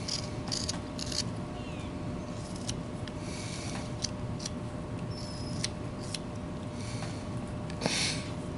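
Whittling knife cutting into wood in short, separate scraping strokes, the loudest one near the end, over a faint steady hum.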